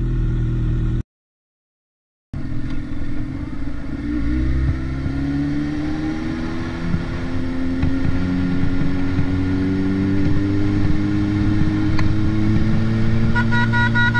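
Motorcycle engine running, cut by about a second of silence early on, then pulling away with its pitch rising slowly as it accelerates. Near the end a vehicle horn sounds in short repeated blasts.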